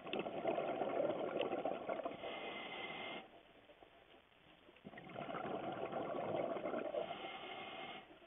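Scuba diver breathing through a regulator: two long rushes of exhaled bubbles, each about three seconds, with a short quiet pause between them.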